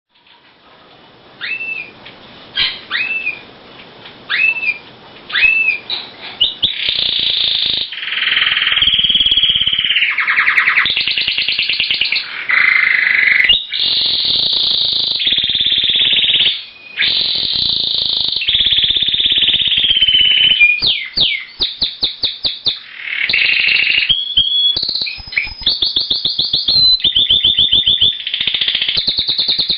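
A male Timbrado (Spanish) canary singing. It opens with four separate hooked whistle notes about a second apart, then breaks into a long song of fast trills and rolling phrases with only brief pauses.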